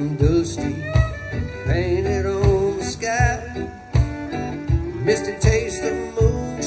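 Live country band playing an instrumental passage: fiddle melody with vibrato over strummed acoustic guitar and resonator guitar, with a steady low drum beat about twice a second.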